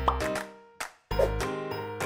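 Channel intro jingle: two struck chords over a deep bass, each fading away, with a short rising blip at the start and a brief gap about a second in.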